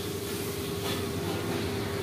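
A steady machine hum with one constant mid-pitched tone over a low rumble, unchanging throughout.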